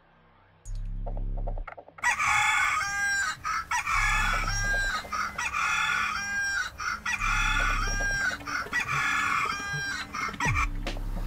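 Alarm clock going off with a recorded rooster crow, starting about two seconds in and repeating the same crow about every two seconds, four times.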